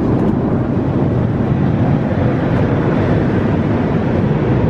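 Steady cabin roar inside an Airbus A380 airliner in flight: a deep, even rushing of airflow and engine noise.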